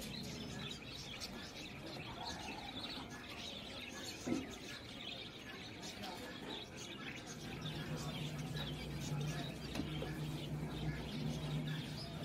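Small birds chirping in the background, with a single thump about four seconds in. A low steady hum comes in about halfway through.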